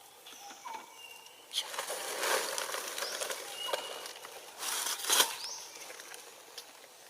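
Short high-pitched squeaks and chirps from animals, with two louder bursts of rustling, about a second and a half in and again around five seconds.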